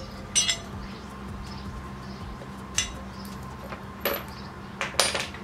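Metal roof-rack bracket hardware being handled and fitted to the crossbar, making about five short, sharp clinks, the last two close together near the end.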